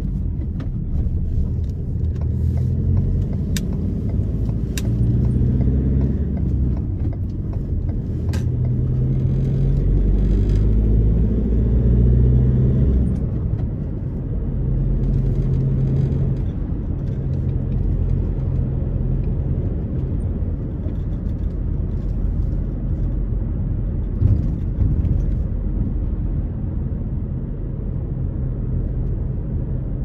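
Car driving on the road: steady engine and tyre rumble whose pitch shifts now and then. There are a few sharp ticks in the first nine seconds and a single thump about 24 seconds in.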